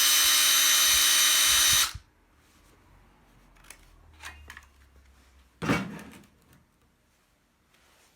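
Makita TD149D 18V impact driver running free at full speed with a steady high whine, spinning without hammering, then stopping suddenly about two seconds in. This is followed by a few faint clicks and a single knock a little past the middle.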